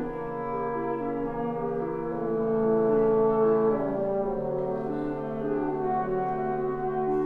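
Chamber wind ensemble, including French horn and clarinet, playing sustained chords in a slow-moving passage, with the harmony shifting every second or two.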